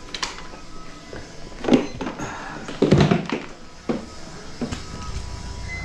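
A series of knocks and thuds, about five in a few seconds, the loudest two about one and a half and three seconds in.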